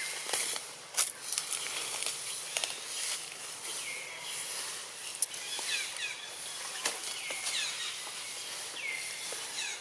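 Outdoor ambience in the trees: a steady high hiss, a handful of short high chirps every second or two in the second half, and a few sharp clicks.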